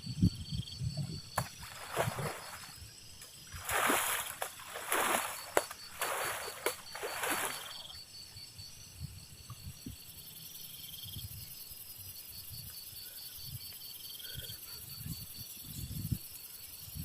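Water sloshing and splashing, four or five loud surges in a row a few seconds in, after some soft low knocks. An insect trills steadily throughout.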